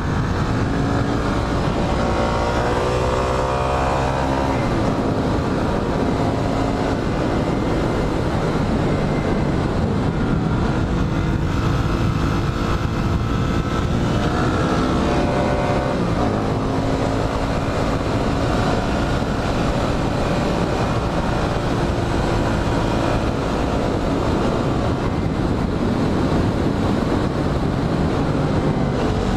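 Motorcycle engine running while ridden, its pitch rising and falling as it accelerates and eases off, over steady wind and road noise.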